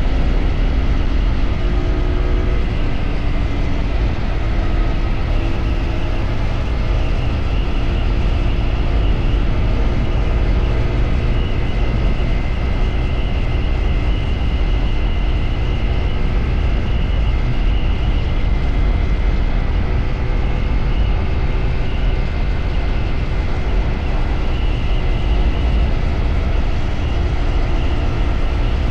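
CFMoto 450SR parallel-twin motorcycle engine running at a fairly steady pace while riding, with a steady low wind rumble on the camera microphone.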